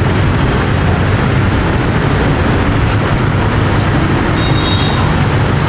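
Steady rumble of passing street traffic, engines running, with a few brief high-pitched squeaks over it.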